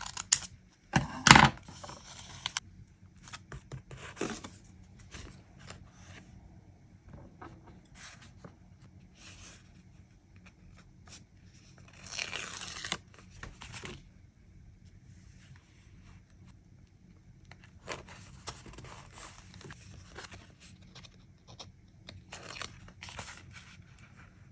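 Close-up paper handling in a journal: rustling and crinkling of paper and stickers, loudest as a sharp crunchy rustle about a second in. About halfway through, a sticker strip is peeled off its backing sheet with tweezers, followed by softer rustles as it is laid onto the page.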